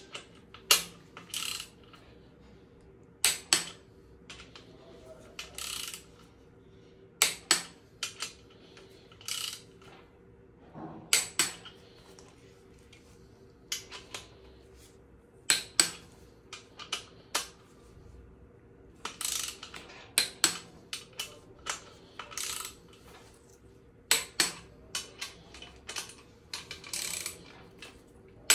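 Ratcheting torque wrench clicking as the main bearing cap bolts of a 4.4 V8 diesel engine block are tightened in sequence to a first stage of 60 Nm. Sharp metallic clicks come every second or two, some in quick pairs or short runs, never a steady rhythm.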